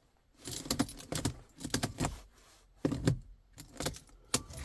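Car keys jangling and clicking in several short bursts as the key is handled before starting the car.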